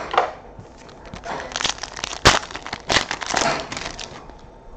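Foil wrapper of a 2017-18 Optic basketball card pack being torn open and crinkled: a run of crackling rustles with a couple of sharp snaps about two and three seconds in.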